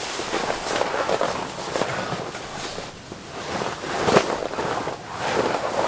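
Towel being scrubbed over a plastic tent floor sheet to wipe up rainwater: a continuous rustling scrub that swells and eases a few times.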